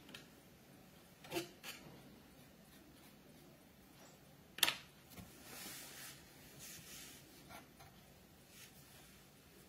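Small clicks and taps of hobby tools and a model locomotive body being handled on a cutting mat. There is one sharp click about halfway through, followed by soft rustling.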